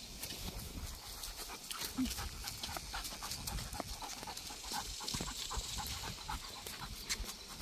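Rottweiler panting on a leashed walk, with many short clicks and scuffs throughout.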